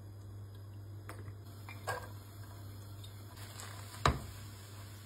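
A few light clicks and knocks of a spatula against a nonstick frying pan as chopped onions are stirred, the sharpest knock about four seconds in, over a steady low hum.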